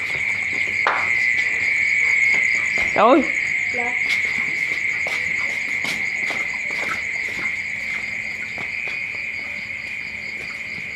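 A dense chorus of crickets chirping continuously at a high pitch, growing a little fainter toward the end, with a few light clicks mixed in.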